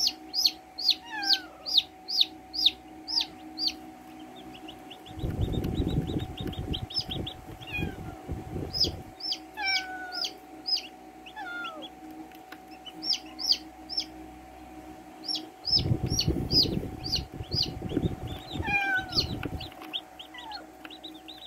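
Baby chicks peeping: runs of short, sharp, high cheeps with some falling chirps mixed in. Twice, about five seconds in and again about sixteen seconds in, a low rough noise lasts a few seconds under the peeps, over a faint steady hum.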